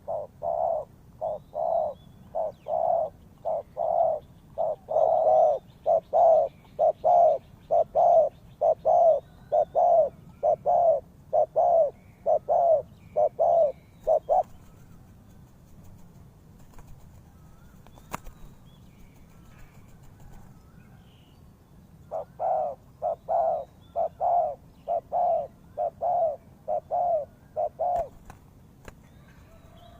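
Spotted dove cooing: a long run of about twenty low, evenly spaced coo notes, a pause of several seconds, then another run of about a dozen. Faint high chirps of small birds sit behind.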